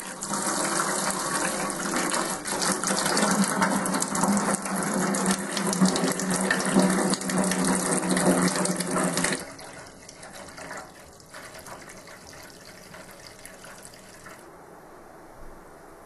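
Water from a filling hose splashing into the empty stainless-steel tub of a Hoover W3590 single-tub washing machine. About nine seconds in, the splashing suddenly drops to a much quieter, steady sound.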